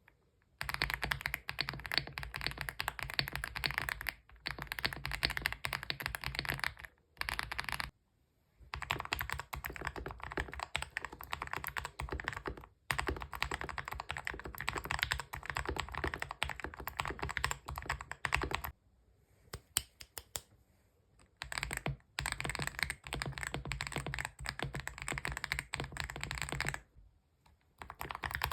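Fast typing on a mechanical keyboard: a dense clatter of keystrokes in runs of several seconds, broken by short pauses and one pause of about three seconds past the middle.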